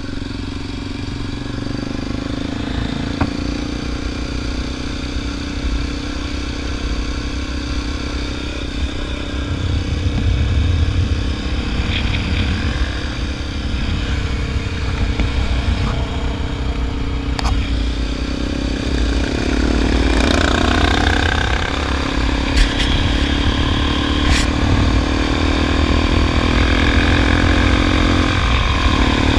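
Motorcycle engine running under way with wind rumbling on the microphone; from about two-thirds in the engine note rises and falls with the throttle, and a few short clicks sound over it.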